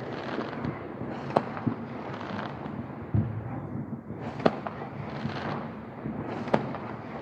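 Fireworks going off: four sharp bangs a second or two apart, one deeper than the rest, over a continuous crackling of smaller reports.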